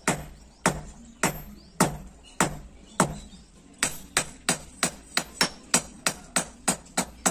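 Blacksmith's hand hammer forging a red-hot billhook blade on a small steel anvil: sharp metal-on-metal blows, about one every half second, quickening to about three a second from around four seconds in.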